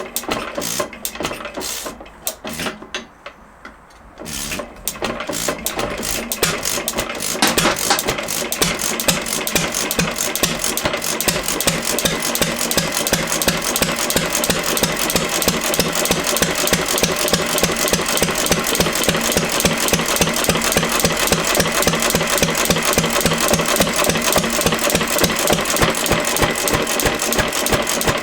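1 hp IHC Mogul hit-and-miss gas engine being started: a couple of seconds of uneven knocks, a short lull, then about four seconds in it picks up and settles into a steady run of rapid, evenly spaced exhaust beats.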